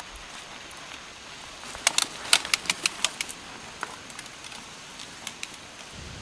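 Mountain bike passing close by: a quick run of sharp clicks and snaps about two seconds in, then a few scattered ticks, over a steady hiss.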